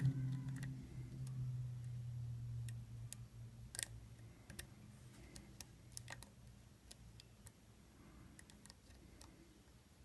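Lock pick working inside an old Yale wafer padlock: faint, scattered ticks and clicks of metal on metal as the wafers are probed.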